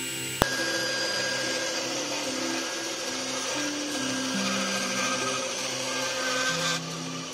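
Bench band saw running and cutting a small piece of wood, a steady whirring rush that drops away near the end, over background music.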